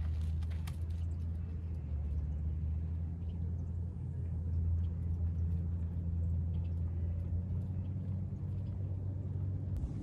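A steady low rumble with no speech, and a few faint ticks about a second in. The rumble cuts off just before the end.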